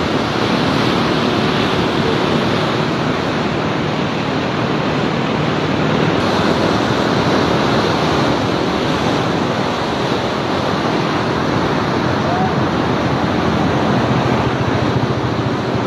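Loud, steady rush of fast-flowing river floodwater.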